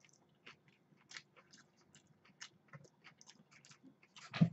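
Close-up chewing of a mouthful of noodles: irregular soft wet clicks and smacks of the mouth, with one louder thump near the end.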